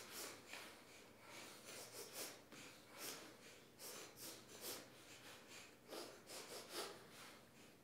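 Choir singers sniffling in turn as part of a choral piece imitating crying: many short, faint sniffs, irregular and overlapping, passed from voice to voice like a canon.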